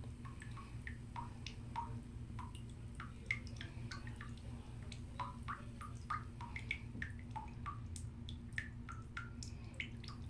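Bathtub faucet dripping into the bathwater: frequent, irregular little plinks that each rise slightly in pitch, over a low steady hum.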